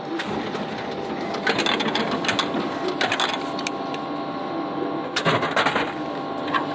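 Frozen-food vending machine's dispensing mechanism running after a selection: a steady motor whir with a few sharp clunks as it delivers the item.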